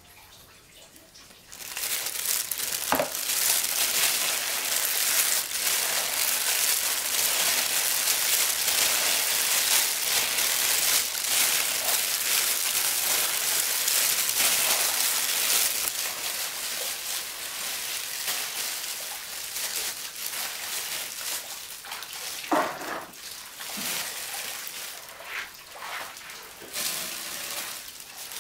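Sticky rice and jackfruit strips being tossed and mixed by hand in a bamboo basket: a loud, steady rustling hiss of rice grains sliding and falling, with hands in plastic bags crinkling. The rustling starts about two seconds in and grows softer and patchier after the middle, with a few light knocks.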